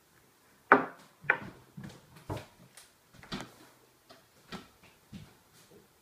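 A sharp knock about a second in as a small glass is set down on a wooden table, then a string of irregular, lighter knocks and thumps from handling and moving about.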